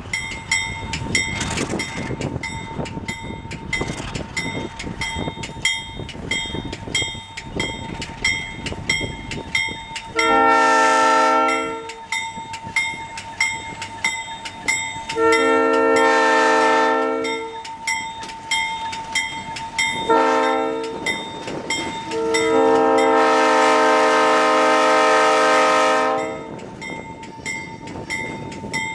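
ALCO RS-11 diesel locomotive's air horn sounding the grade-crossing signal: two long blasts, one short and a final long one. A bell rings steadily throughout, over the rumble of the passing train.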